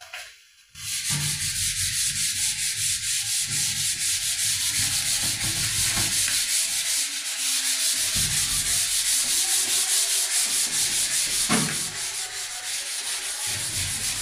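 Whiteboard eraser scrubbing across a whiteboard, wiping off marker writing in rapid back-and-forth strokes: a steady scratchy hiss that starts about a second in.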